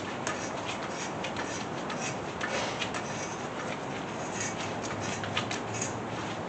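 Hand-turned thread chaser working through a head-bolt hole in a Chevy small-block 350's cast-iron block: irregular light metallic clicks and scraping over a steady hiss.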